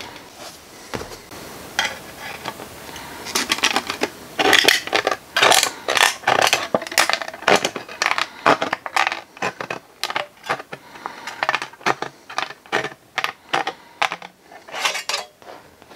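Tin snips cutting thin tin-can sheet metal along marked lines: a run of sharp metallic snips, few in the first three seconds, then one after another.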